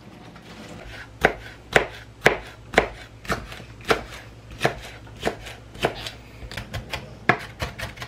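Kitchen knife chopping on a cutting board, with sharp, even strokes about two a second starting about a second in, turning quicker and lighter near the end.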